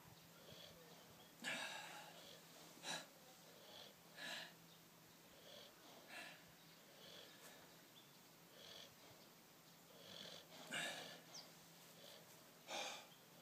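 Faint breathing of a man exercising: a series of short, breathy puffs about a second or two apart, a few of them stronger than the rest.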